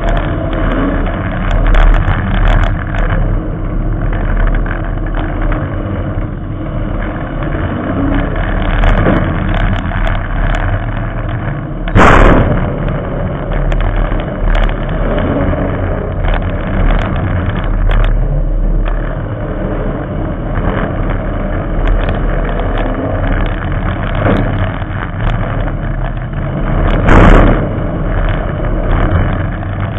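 Figure-8 race car engine running hard through open upright exhaust stacks, heard from on board the car, its pitch and level rising and falling with the throttle. Two loud sharp bangs stand out, about twelve seconds in and again near the end.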